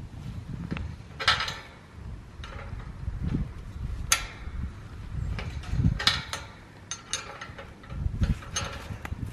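A wrench turning the nut on a chain-link gate's threaded tension rod, giving a handful of sharp metal clicks and short rasps spread over several seconds. The rod is being tightened to lift a sagging gate that drags on the concrete.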